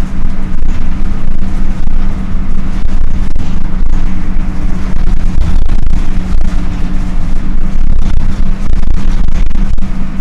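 Dennis Dart SLF bus's engine cooling fan running, a loud steady drone with a constant hum over a rumbling low end.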